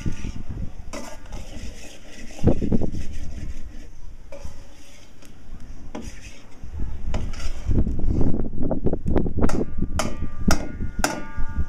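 A long-handled metal spoon scraping and clinking against a karahi as okra is stirred and fried over a wood fire, with the clinks coming thick and fast in the last few seconds.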